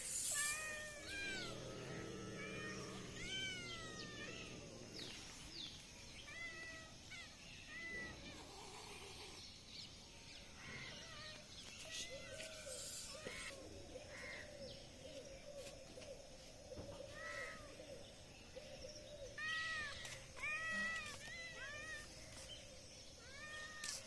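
Cat meowing: many short, high mews that rise and fall, coming in quick runs, bunched in the first few seconds and again near the end.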